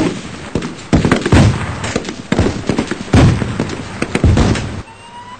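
Staged earthquake: a run of loud bangs and crashes over a low rumble, about eight big hits, that cuts off suddenly near the end. A faint rising, siren-like whistle starts just as it stops.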